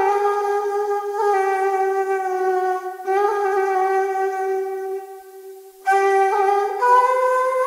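Background music: a solo woodwind playing slow, long held notes, with a short pause about five seconds in and a step up in pitch near the end.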